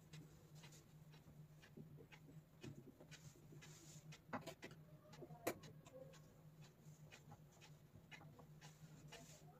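Near silence with a faint steady low hum, broken by small scattered clicks and rustles of satin fabric and pins being handled as pleats are pinned onto a dress form. The two loudest clicks come about four and a half and five and a half seconds in.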